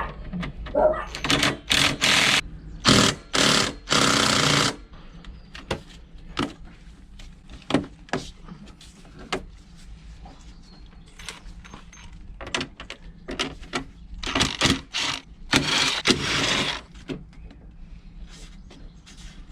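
Ratchet and socket clicking as bolts are undone on a moped's side panel: short fast runs of ratchet clicks about two, four and sixteen seconds in, with scattered knocks and clinks of tools against the bike between them.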